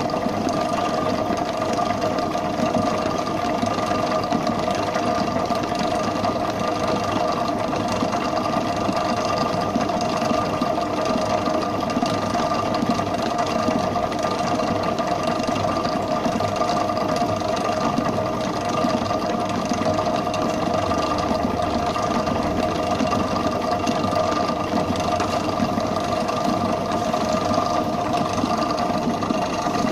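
Bakery mixer running at a constant speed, its beater whipping buttercream icing in a steel bowl: an even motor hum with a steady whine.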